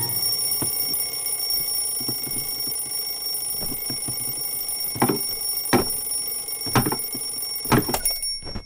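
Twin-bell alarm clock ringing continuously. From about five seconds in, a few sharp knocks sound as a broom is swung at it. The ringing cuts off suddenly near the end.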